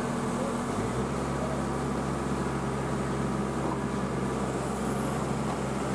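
Heavy diesel engine running steadily under load, its note shifting about a second in.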